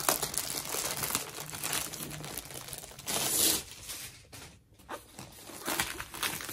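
Plastic packaging crinkling and rustling as kit items are handled, with a louder rustle about three seconds in.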